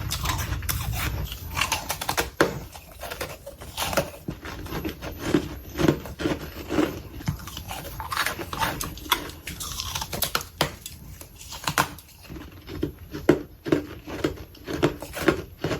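Freezer frost being bitten and chewed close to the microphone: irregular, crisp crunches, several a second at times, with short pauses between bites.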